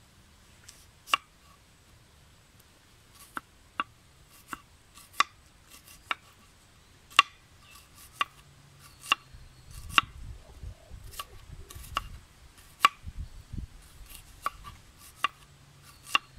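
Large kitchen knife slicing a red onion on a wooden cutting board: sharp, irregular knocks as the blade comes down through the onion onto the board, about one or two a second.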